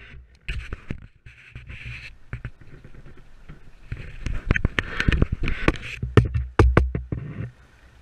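A small sailing catamaran under way in light air: irregular sharp knocks and taps, with bursts of swishing water hiss over a low wind rumble on the microphone. The knocks come loudest and closest together from about four to seven seconds in.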